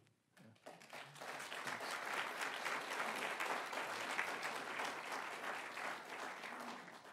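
Audience applauding: a few claps about half a second in build into steady applause, which thins out and stops near the end.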